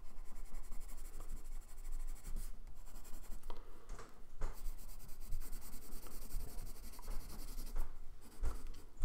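Pencil shading on sketchbook paper: a steady scratchy rubbing of short strokes, with a few louder scrapes scattered through.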